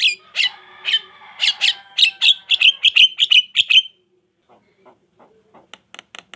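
Javan myna chattering: a run of sharp, shrill calls that come faster and faster for about four seconds. After a short pause, a fainter, rapid, even series of clicks starts near the end.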